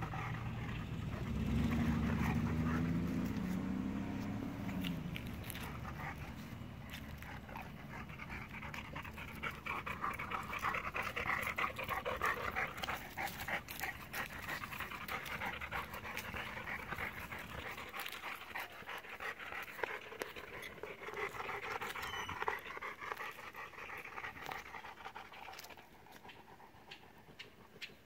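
Young brindle bullmastiff panting steadily in quick rhythmic breaths, with a low wavering drone a couple of seconds in.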